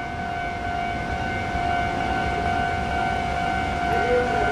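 A steady high-pitched whine holding one pitch, over a low rumble.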